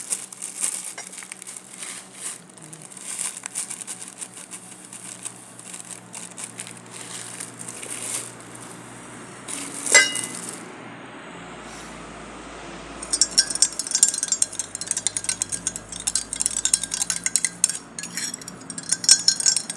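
A spoon and a glass, used in making lime juice. For the first several seconds there is scraping with small clicks, then one sharp ringing clink about ten seconds in. From about thirteen seconds on comes a fast run of clinks, as when stirring in a glass.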